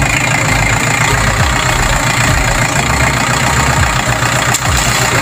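Farm tractor's engine running steadily.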